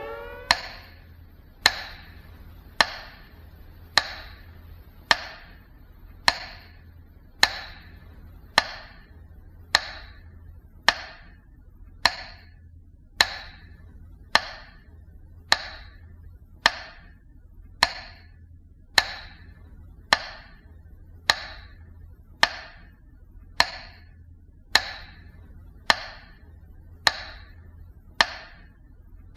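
Metronome ticking at a slow, steady beat of about one tick a second, each tick a sharp, dry click: the sound of the Leningrad blockade radio metronome, the city's 'heartbeat', at the slow tempo it kept when no air raid was under way.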